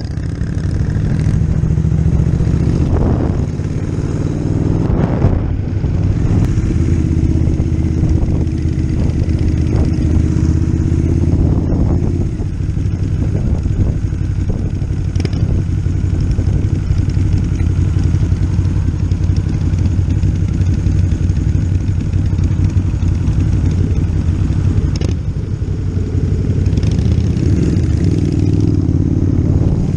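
Motorcycle engine running steadily under way, its note rising briefly a couple of times early on and shifting again about halfway through and near the end as the bike changes speed.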